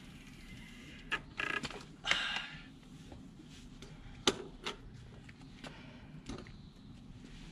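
A Raleigh Sprint road bike braking to a stop with short squeaks and creaks, then a scattering of clicks and knocks as the rider steps off and handles the bike. The sharpest knock comes about four seconds in.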